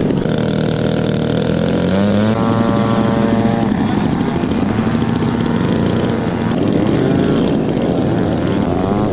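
Radio-control model airplane's piston engine and propeller running. Its pitch rises about two seconds in, then swings up and down.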